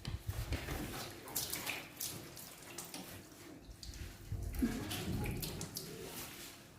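Water splashing and running irregularly, with a few light knocks, while the washing machine's drain filter is handled and cleaned.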